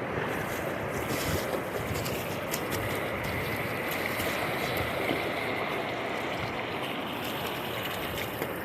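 River water rushing steadily over rocks, a continuous splashing hiss.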